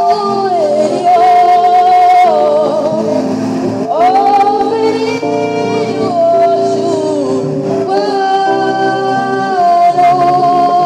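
Church choir singing, male and female voices together, with a melody line sliding between long held notes over sustained lower harmony.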